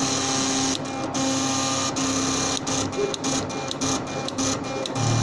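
Elliott 803 computer's drum plotter drawing: the pen carriage and paper drum stepping with a steady mechanical buzz, broken by many brief pauses that come more often in the second half.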